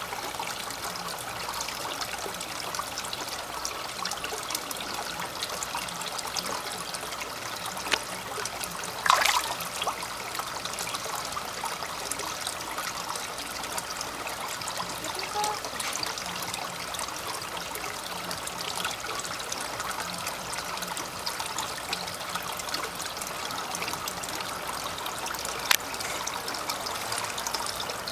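Water trickling steadily into a koi pond, with a few short sharp sounds over it; the loudest comes about nine seconds in.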